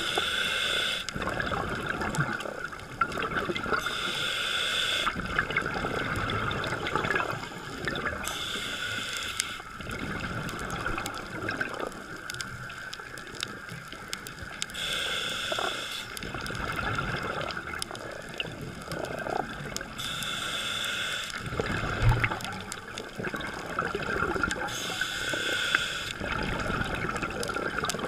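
Scuba diver breathing through a regulator underwater, heard through a GoPro waterproof housing: six hissing inhalations a few seconds apart, with bubbling, gurgling exhalations in between.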